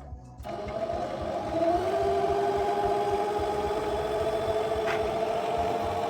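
Electric sewing machine motor running, starting about half a second in, rising slightly in pitch and then holding a steady hum, and stopping suddenly.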